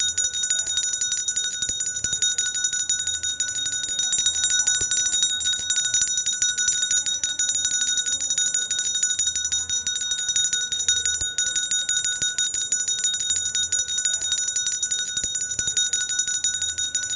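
Small hand bell of the kind ice cream and street vendors ring, shaken continuously so its clapper strikes many times a second and the high ring never dies away.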